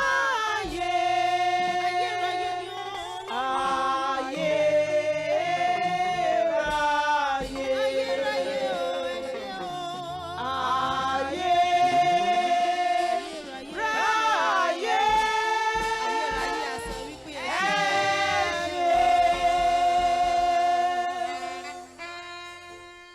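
Gospel-style choral singing with long held, sliding notes over a sustained low accompaniment, fading out near the end.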